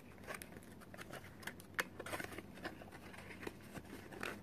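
Small cardboard box being opened by hand: scattered light crackles, clicks and scrapes as the card flaps and paper tab are pulled apart.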